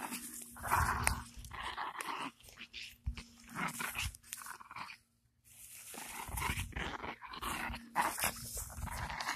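Chihuahua growling in irregular bursts as it bites and tugs at a jeans leg, with rustling of fabric and steps on grass; the sounds stop briefly about halfway through.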